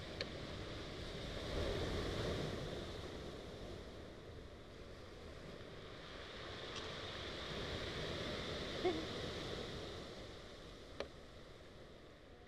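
Small sea waves breaking and washing up over a rocky, pebbly shore, swelling twice with a few brief clicks among the wash, then fading out at the end.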